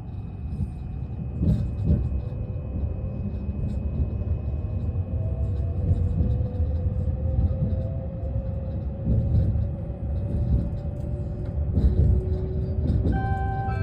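E657-series electric train running, heard from on board: a steady low rumble of wheels on track with a faint, slowly drifting motor whine and a few light knocks. Near the end, the first notes of the onboard announcement chime begin.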